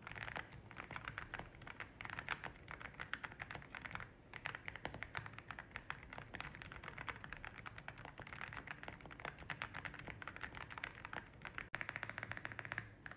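Fast typing on an AULA 75 mechanical keyboard fitted with MOA-profile PBT keycaps: a steady, dense run of key clacks.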